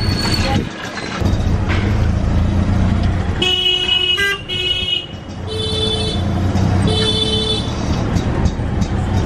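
Auto-rickshaw engine running with a steady low drone amid street traffic, while vehicle horns honk four times: a blast a little over three seconds in, a short toot right after, then two longer honks in the middle.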